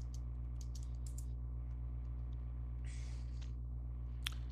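Keystrokes on a computer keyboard as a short shell command is typed and entered: a quick run of key clicks, then a couple of single strokes, over a steady low electrical hum.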